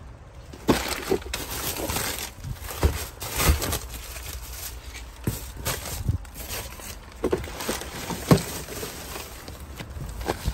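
Gloved hands rummaging through trash: plastic bags, bubble wrap and cardboard boxes rustling and crinkling in irregular bursts, with several sharper knocks as items are shifted.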